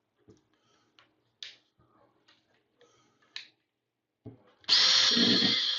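A few faint handling clicks, then about three-quarters of the way in a cordless drill starts and runs steadily with a high motor whine, boring a small test hole with a drill bit to probe for a stud.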